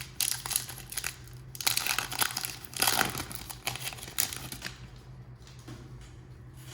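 Crinkling and rustling of a foil trading-card pack wrapper and cards being handled, in irregular scratchy bursts for the first four and a half seconds, then dying down to a low steady hum.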